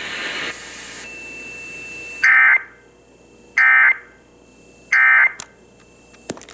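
Emergency Alert System end-of-message signal received over the radio: three identical short bursts of screechy two-tone digital data, about a second and a half apart, marking the close of the monthly test. Before the first burst there is a stretch of radio hiss with a faint thin tone.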